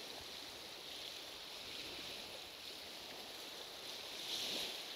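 Faint, steady wash of sea water at the shoreline, swelling briefly about four seconds in.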